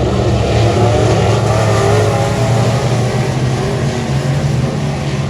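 Dirt-track race car engine running hard, its pitch wavering up and down with the throttle.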